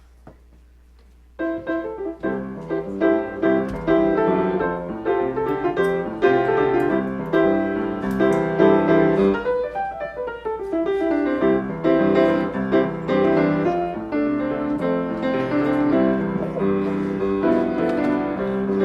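Piano playing a song's introduction, sustained chords under a melody, starting about a second and a half in after a faint hum.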